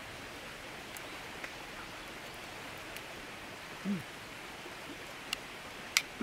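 A metal spoon clicking against a stainless sierra cup a few times, sharpest twice near the end with a brief ring, over a steady hiss. A short low 'mm' from the eater about four seconds in.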